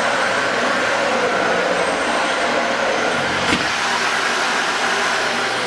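Dyson Ball Multifloor 2 upright vacuum cleaner running steadily with a faint whine while being pushed over carpet, its cleaner head fitted with O-rings that hold up the sole plate so air can flow in rather than the head sealing down onto the pile. A single sharp click comes about three and a half seconds in.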